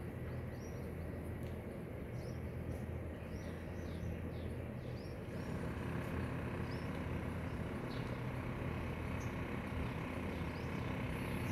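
Outdoor ambience: a steady low mechanical hum, like distant traffic or a motor, with small birds chirping again and again over it.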